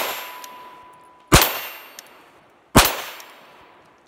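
Three .22 LR shots from a Calico M100 pistol: one right at the start, then two more about a second and a half apart. Each shot trails off in a long echo.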